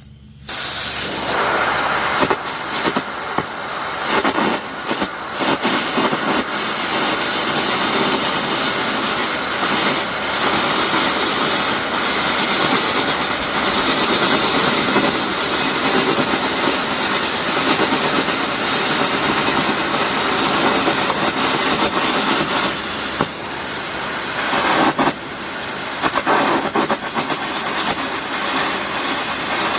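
Air carbon arc gouging: the arc strikes about half a second in, then a loud, steady crackling hiss of arc and compressed-air blast as the carbon electrode gouges steel.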